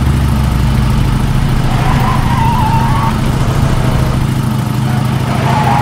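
Motorcycle engine running steadily at cruising speed, with rushing wind noise, heard from on board the moving bike. A faint high whine comes in about two seconds in and again near the end.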